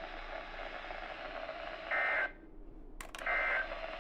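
NOAA Weather Radio SAME data signal: two short, buzzy blasts of digital data tones about a second and a half apart, each under half a second long, as in the End of Message code. A sharp double click falls just before the second one, over a steady radio hiss.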